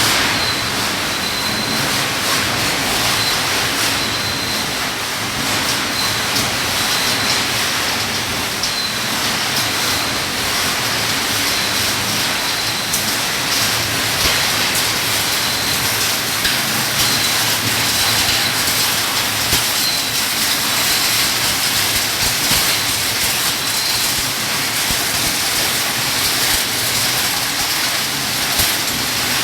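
Gold trommel washing plant running: a steady rush of water and washing gravel over the machinery's hum, with a faint high whine that catches at a regular beat.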